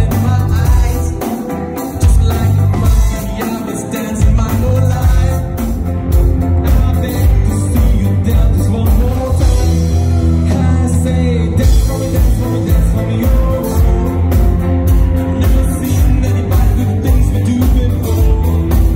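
Live band playing a pop song: electric guitar, bass guitar, drum kit with a steady beat and keyboard, under a lead vocal. The low beat drops out briefly about a second and a half in and again around four seconds before resuming.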